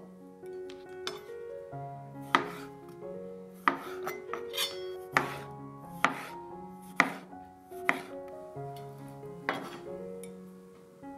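Chef's knife slicing pickled cucumbers into rounds on a cutting board: about seven sharp knocks as the blade hits the board, roughly a second apart. Light background music plays throughout.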